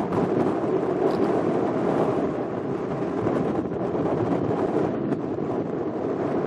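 Steady noise of a boat under way: its engine's rumble mixed with wind on the microphone.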